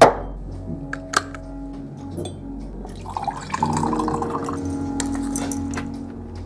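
A ceramic mug is set down on a kitchen worktop with a sharp knock. About three seconds in, water pours from an electric kettle into the mug for a second or two, under a steady low hum.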